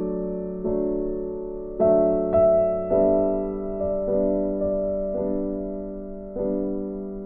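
Background piano music: a gentle melody of struck notes and chords, each fading before the next.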